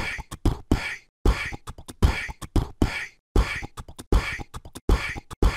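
End-card music: a beatboxed rhythm, with kick- and snare-like mouth sounds keeping a steady beat.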